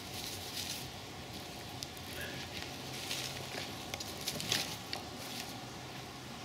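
Small campfire of birch bark and pine resin burning, crackling and popping irregularly, with a few sharper pops about four and a half seconds in.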